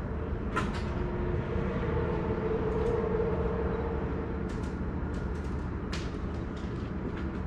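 Boat motor running steadily at low speed, a low rumble with a hum over it, and a few light clicks in the second half.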